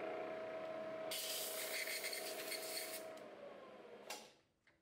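Drilling machine's spindle and motor running with a steady hum, then winding down and fading out after being switched off once the drill has broken through. A loud hiss lasts about two seconds in the middle, and a short knock comes just before it goes quiet.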